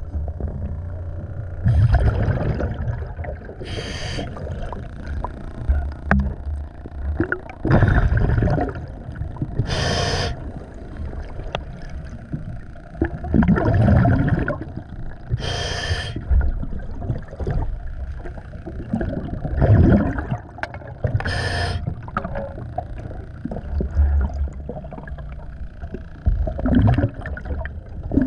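Scuba diver breathing underwater through a regulator: bubbly exhalations alternating with short, sharp inhalations, one breath cycle about every six seconds.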